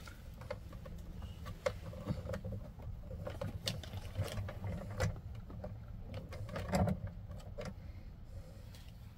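Scattered light clicks and taps of a screwdriver and ferrule-crimped wire ends being handled at the screw lug terminals of an RV power distribution panel, over a low steady hum.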